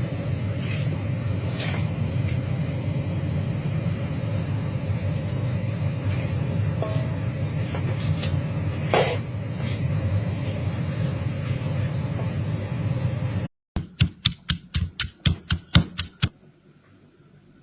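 A steady rumbling noise with occasional clicks, cut off suddenly, followed by a quick run of about a dozen sharp knocks, roughly five a second.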